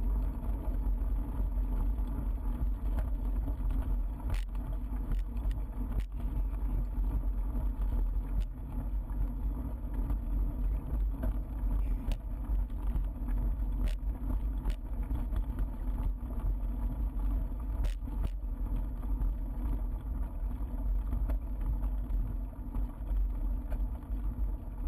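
Bicycle rolling over a gravel path: a steady rumble of tyres on gravel and low wind rumble on the camera microphone, with a few sharp clicks and rattles scattered through it.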